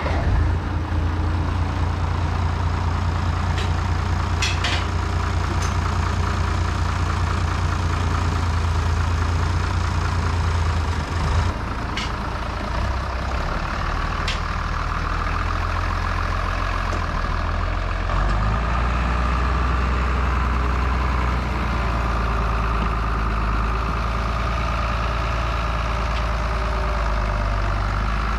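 International 686 tractor engine running steadily as the tractor moves off. Its note shifts about a third of the way in and again a little past halfway, with a few sharp clicks in the first half.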